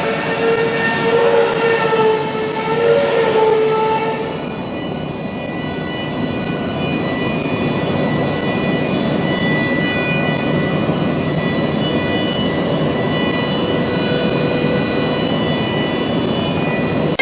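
CNC torsion spring machine running, a steady mechanical clatter with whining servo tones. The tones waver for the first few seconds, then change about four seconds in to a steadier, higher whine.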